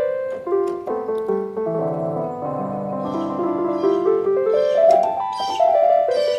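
Electronic keyboard playing an instrumental passage in a piano voice: a melody stepping up and down over held lower notes.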